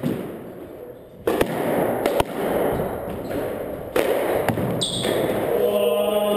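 Squash rally: the ball struck by the rackets and hitting the walls, about four sharp cracks echoing in the enclosed court, with a brief high shoe squeak on the wooden floor near the end.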